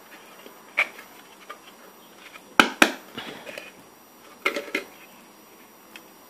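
Clear hard-plastic fruit mould clacking and clicking as it is handled. There are a handful of sharp clicks, and the loudest is a close pair about two and a half seconds in.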